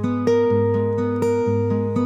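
Background music: acoustic guitar, plucked notes over a steady repeating bass pattern.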